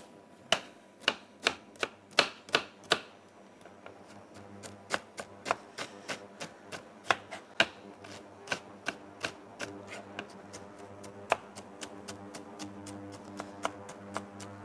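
Chef's knife dicing an onion on a plastic cutting board: sharp, irregular knocks of the blade striking the board, a few a second, loudest in the first three seconds.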